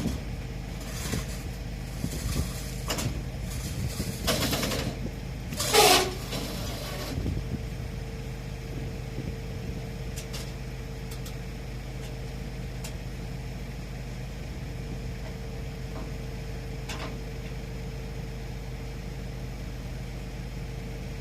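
Heavy diesel engine idling steadily, with several hissing bursts in the first seven seconds, the loudest near six seconds with a falling squeal.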